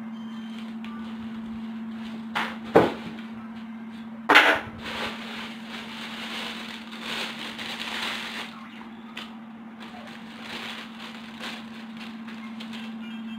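TV packaging being handled: a few sharp knocks and snaps, the loudest about four seconds in, then foam and plastic wrapping rustling and crinkling for a few seconds, with a few light clicks later, over a steady low hum.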